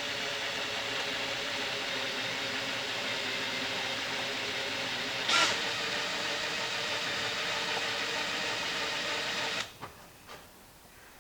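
Power drill running steadily under load, drilling out a pop rivet on a plastic compost tumbler lid ring. There is one brief louder moment about five seconds in, and the drill stops near the end.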